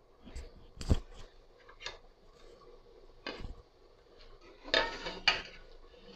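Steel ladle and aluminium cooking pot clinking together in a handful of separate sharp knocks, the loudest about a second in and two close together near the end.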